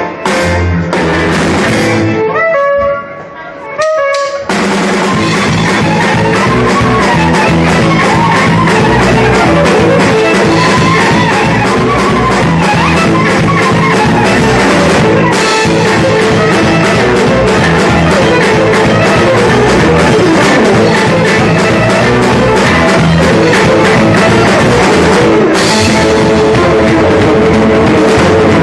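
Band music with guitar and drum kit: a sparse passage of separate guitar notes, then the full band with a steady drum beat comes in about four seconds in.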